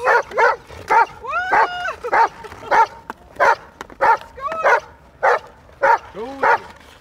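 A dog barking over and over, about one and a half barks a second, some of the barks coming out as higher, drawn-out yelps.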